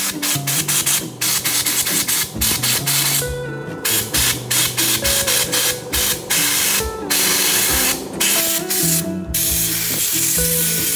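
Compressed-air blow gun hissing in many short bursts, stopping and starting, as air is blown into a disc brake caliper around its pistons. Background music plays underneath.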